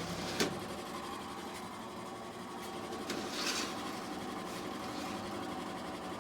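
A unit running through its cycle of odd noises: a steady motor hum made of many even tones, with a sharp click about half a second in and a brief hiss about three and a half seconds in. The owner does not know why it cuts on, makes these noises and then stops.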